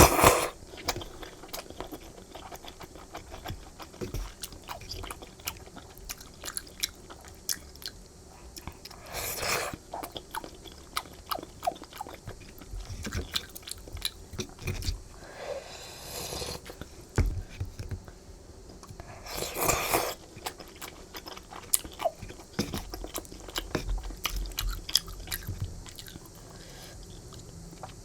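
Close-miked chewing of chewy flat glass noodles in a creamy rosé sauce, with many small wet clicks. Louder slurps come about nine and nineteen seconds in and again at the end.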